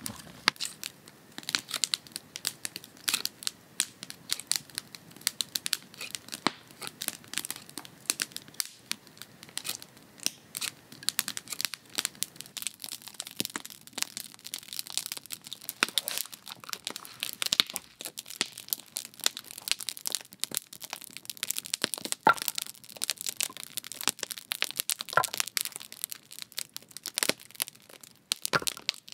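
Freshly lit campfire of split-wood kindling crackling as it catches: a quick, irregular run of snaps with a few louder pops.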